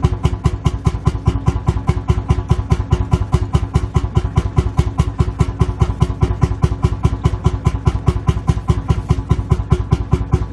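Lanz Bulldog tractor's single-cylinder two-stroke hot-bulb engine idling, giving a steady, evenly spaced stream of exhaust beats.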